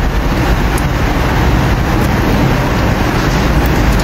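Samsung automatic washing machine running, a steady loud rushing noise.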